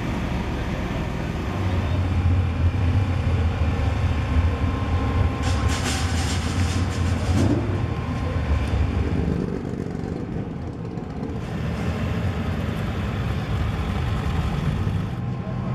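A vehicle engine running with a low rumble that grows louder about two seconds in and eases off about nine seconds in, with a brief hiss in the middle.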